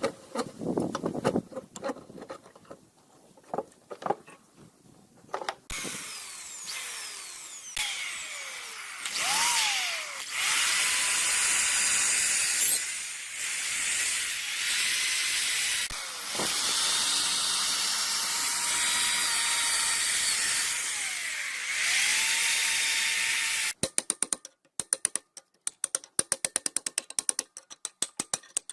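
Handheld power tool motor spinning up, running with a steady whine and winding down several times, after a few light knocks of handling. Near the end it gives way to a fast run of sharp clicks.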